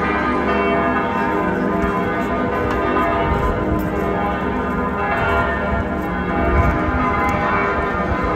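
Church bells ringing, several bells pealing together with long overlapping ringing tones.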